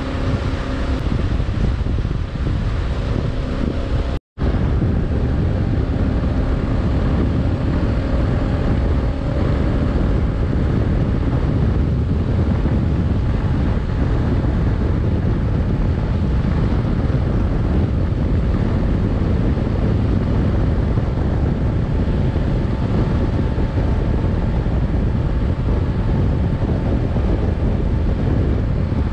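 Heavy wind buffeting the microphone of a Kawasaki KLR 650 motorcycle at road speed, with the single-cylinder engine's drone underneath. The sound drops out completely for a split second about four seconds in.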